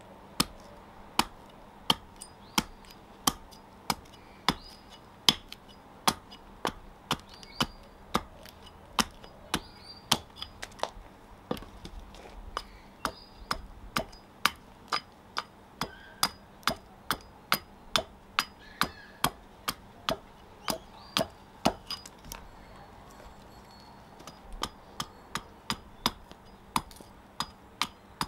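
Carving axe chopping into a nectarine-wood fork blank held upright on a chopping block: a steady run of sharp knocks, about two a second, with a short pause about three-quarters of the way through.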